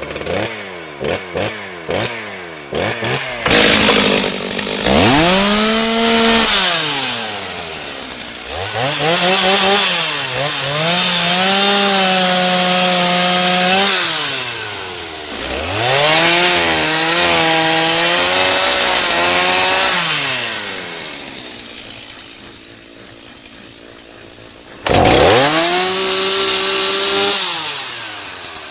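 Angle grinder fitted with a chainsaw bar-and-chain attachment, switched on in bursts. It gives a few quick blips first, then spins up, runs at a steady whine and winds down again, about five times over.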